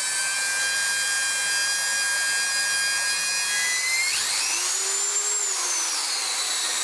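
Repaired Dremel 3000 rotary tool's brushed motor running with a high, steady whine at low speed. About four seconds in, its pitch rises sharply as the tool speeds up, holds, then drops partway back near the end.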